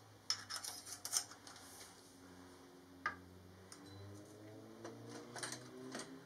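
Workshop hand-tool work on a motorcycle exhaust: a quick run of small metallic clicks, like a ratchet being worked, in the first second or so. Then scattered single clicks and light metal taps as the stainless pipe is handled.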